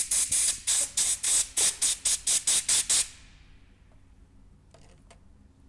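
Compressed-air blow gun fired in about a dozen quick hissing bursts over three seconds, blowing out a small screen filter. A few faint clicks of handling follow near the end.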